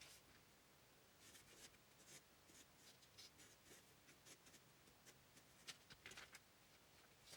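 Near silence with faint, irregular scratching strokes, several a second, over quiet room tone.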